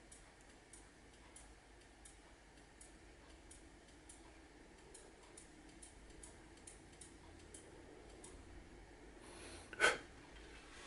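Faint, irregular ticking and crackling as the blue laser beam burns the target, then one sharper click near the end as the laser rifle is switched off.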